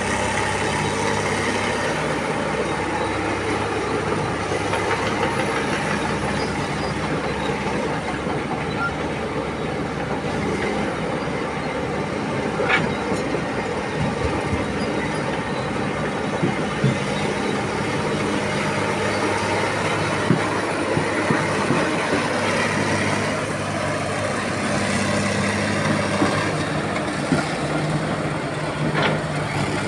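Heavy diesel machinery, a Komatsu PC300 hydraulic excavator at work loading a truck, running steadily with a few short sharp clanks scattered through.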